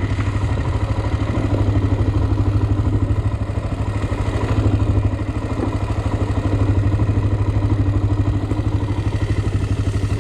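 Single-cylinder Honda ATV engine idling steadily with an even, rapid pulse.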